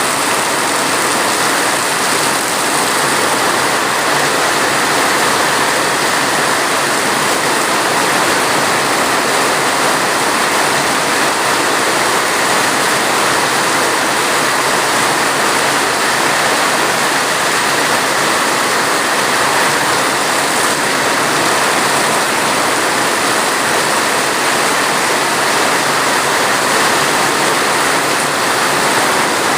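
Steady heavy rain, an even, unbroken hiss.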